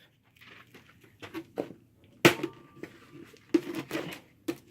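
Scattered sharp knocks and impacts on a flip phone being smashed: a few soft clicks about a second in, a loud strike a little after two seconds, and several more strikes near the end.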